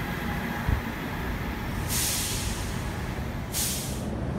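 Low rumble of a train out of sight, with two short bursts of air hiss, about two seconds and three and a half seconds in.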